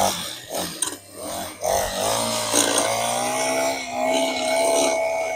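Gas-powered walk-behind sidewalk edger's small engine running under cutting load. Its pitch rises about a second and a half in, then holds fairly steady.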